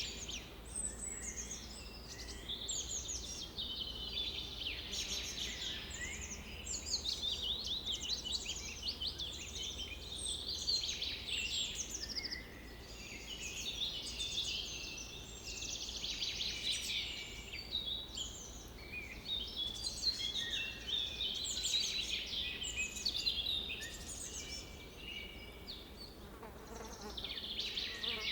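Several birds singing at once: a busy, overlapping chorus of quick high chirps, sweeps and trills that never pauses.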